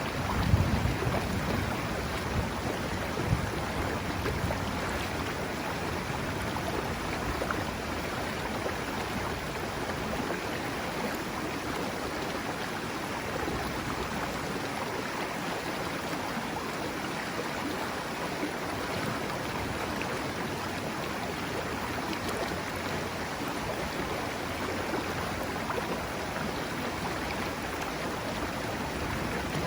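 Steady rush of the Serio river's flowing water. Some low wind buffeting on the microphone in the first few seconds.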